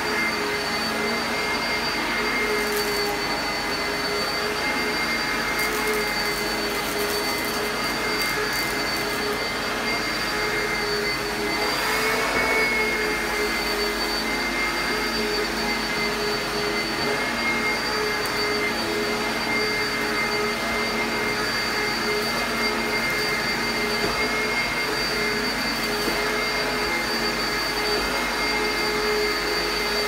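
Oreck XL upright vacuum cleaner running steadily while pushed over carpet, a constant motor whine over airflow noise. The pitch lifts slightly for a moment about twelve seconds in.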